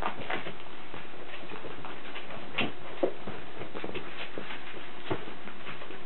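Welsh corgi puppy moving about and playing: scattered light clicks and taps at an uneven pace, the sharpest about three seconds in.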